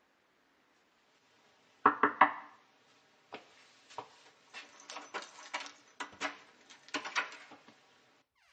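Hands knocking and tapping on a tabletop: three loud knocks in quick succession about two seconds in, then a run of lighter, irregular taps and clicks.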